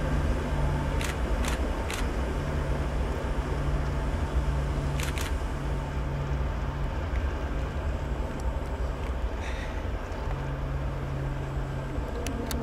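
Engine running steadily with a low hum and rumble. Three sharp clicks in the first two seconds, two more about five seconds in, and another near the end.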